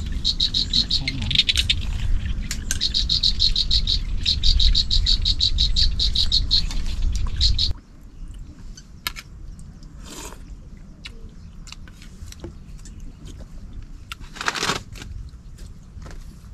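Rapid, evenly repeated high-pitched animal chirping over a low rumble, which stops abruptly about halfway through. Then a quieter background with a few faint clicks and two short noisy bursts.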